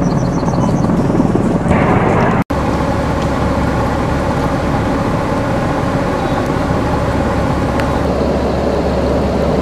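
Diesel engine of an eight-wheeled armoured vehicle running steadily, a continuous rumble with a brief dropout about two and a half seconds in.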